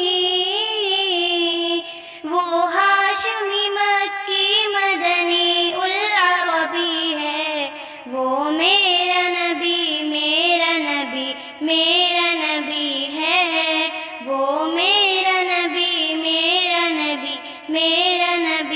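A high solo voice singing a naat, an Urdu devotional song, in long ornamented phrases with brief breaths between them.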